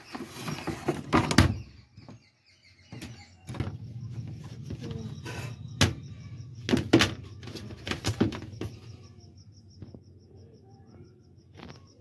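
Plastic knocks and clatter as a semi-automatic washing machine's plastic spin cap is handled in the spin tub. About a dozen sharp knocks come through the first nine seconds, then it goes quieter.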